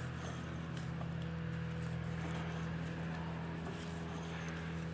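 Steady low electrical hum over faint background noise, with no distinct events.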